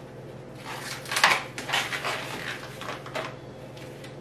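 Long latex modelling balloons being squeezed and handled as air is let out of the tip: a cluster of short, irregular rubbing noises over a couple of seconds.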